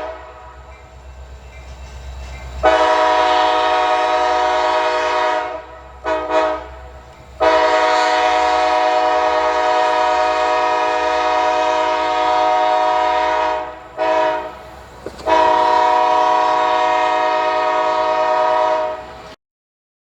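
CSX SD70MAC locomotive's air horn sounding a multi-note chord in a sequence of blasts: a long blast about three seconds in, two quick toots, a long held blast, a short toot, then a final long blast that cuts off abruptly near the end. A low rumble from the locomotive runs under the horn between blasts.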